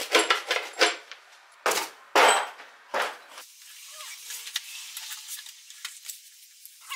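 Plastic bag and cardboard packaging being handled: crisp crinkling first, then several loud swishes and scrapes of cardboard in the first three seconds, settling into quieter rustling.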